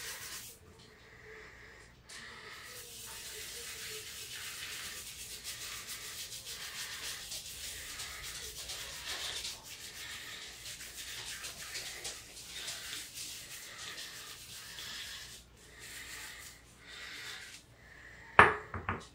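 Hands rubbing shaving foam into a beard: a soft, scratchy rubbing that fades about fifteen seconds in. Near the end, a sharp loud knock, then a second smaller one.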